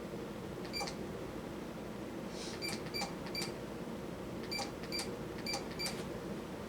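42-inch Yita Home ceiling fan running on high speed: a steady hum and rush of moving air, with light metallic ticks at irregular intervals.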